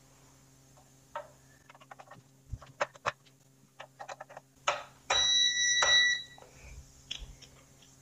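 Small plastic clicks and knocks as batteries are pressed into the battery compartment of an exercise bike's LCD monitor. About five seconds in comes a single high electronic beep, about a second long, as the monitor powers up.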